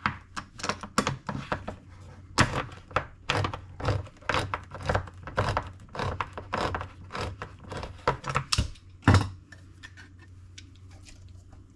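Kitchen handling noises as a can of green chilies is opened and emptied into a crock pot: a run of irregular clicks and knocks, thinning out near the end, over a low steady hum.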